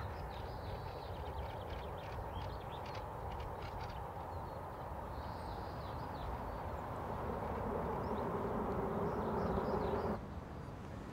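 Outdoor ambience: a steady low rumble with scattered short high ticks and chirps in the first few seconds. It grows louder from about seven seconds in, then drops abruptly about ten seconds in.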